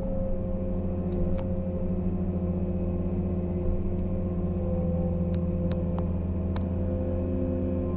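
Excavator diesel engine running steadily under load, heard from the operator's cab. A few short sharp clicks or knocks come about a second in and several more between five and seven seconds.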